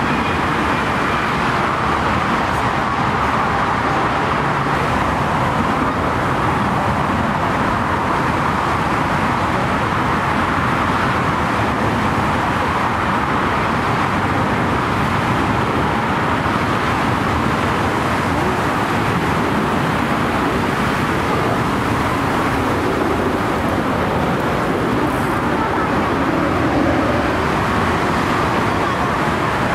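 Steady, unbroken roar of jet aircraft and traffic around the airfield, with no clear rise or fall in level.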